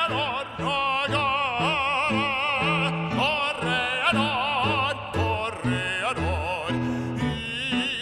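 A man singing a song in French in operatic style with a wide vibrato, over an instrumental accompaniment with a bass line that moves in short held notes.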